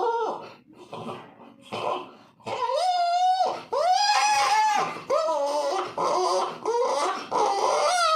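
Puppy whining and crying in a string of high-pitched calls, two of them longer and drawn out about a third of the way through.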